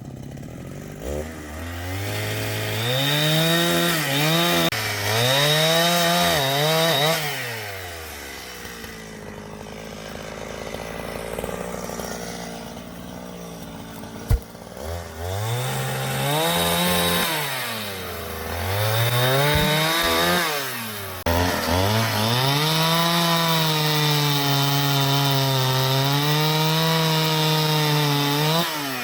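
Two-stroke chainsaw cutting a log, revving up into the cut and held at high speed for three long runs, and dropping back to idle in between. A single sharp knock is heard partway through.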